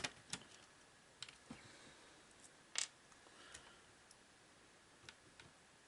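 Near silence broken by a few faint, scattered clicks and light taps of small plastic parts being handled inside an opened clock radio, the sharpest one a little before the middle.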